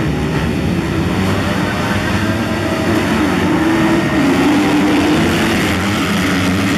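Motocross dirt bike engines running hard, the pitch rising and falling.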